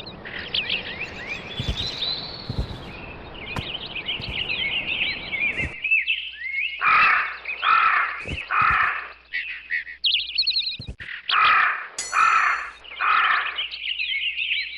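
Small birds chirping and twittering throughout, over an even background hiss for the first six seconds. From about seven seconds in, a larger bird gives loud calls in two runs of three, about a second apart.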